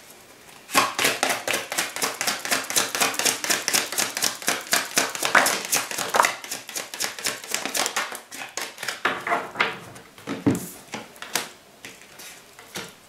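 A tarot deck being shuffled by hand: a fast, steady run of papery card slaps and clicks from about a second in. Near the end there are a few scattered clicks as cards are laid down on the table.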